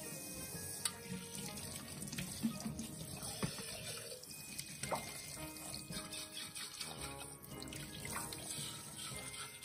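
Kitchen faucet running a steady stream into a stainless-steel sink as dishes are rinsed, with a few light knocks.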